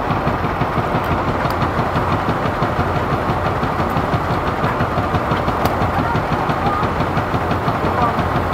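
Small fishing boat's engine running steadily at a constant speed, a dense, even chugging with no change in pace.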